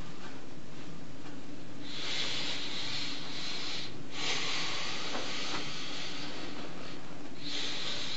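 Steady hiss of an interview-room microphone recording, with long high hissy swells of two to three seconds each, starting about two seconds in.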